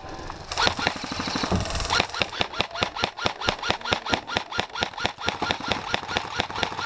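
Airsoft gun firing a long full-auto burst: a steady, even clatter of about six shots a second that runs on without a break.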